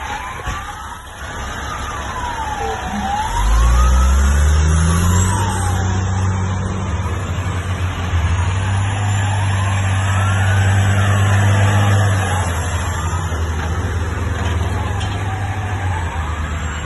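A siren wailing, slowly rising and falling every two to three seconds, over the deep engines of heavy military trucks hauling armoured vehicles on low-loader trailers. About three seconds in, a truck's engine climbs in pitch as it pulls through, runs loud and steady, then eases back about twelve seconds in.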